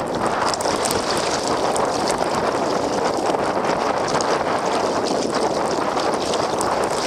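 Blizzard wind buffeting the microphone in a steady rush, with water splashing and lapping around a kayak.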